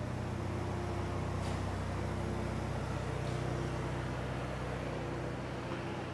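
City street traffic, with a motor vehicle's engine running steadily close by as a low, even hum.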